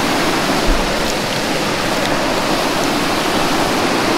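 Creek water rushing steadily over a low ledge, an even hiss of falling water. A brief low thump comes just under a second in.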